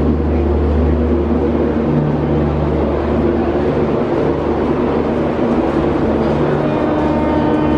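Steady low mechanical hum and rumble, as of a nearby vehicle or machine running. Faint high tones come in near the end.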